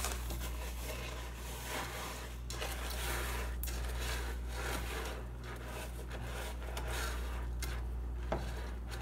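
A spoon stirring Rice Krispies cereal through sticky melted marshmallow in a nonstick pot: irregular scraping and rubbing, with a few light knocks against the pot, over a steady low hum.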